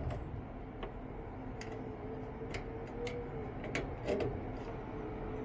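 Scattered light clicks and ticks of a blower speed-tap wire and its push-on terminal being handled on a furnace control board, over a low steady hum.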